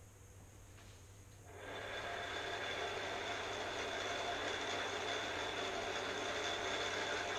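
Electric motor of a battery-powered vintage Hot Wheels track booster switching on about a second and a half in, then running with a steady high whine.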